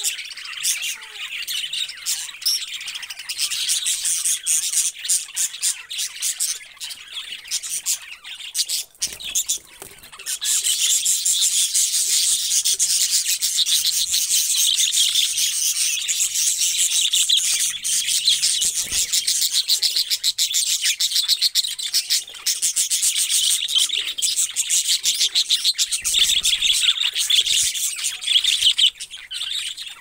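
Budgerigars chirping and chattering: scattered chirps at first, then from about ten seconds in a dense, continuous high-pitched chatter.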